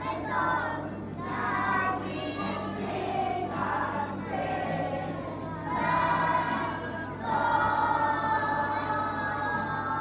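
A choir of young children singing a Christmas song together, in sung phrases with short breaks and long held notes toward the end.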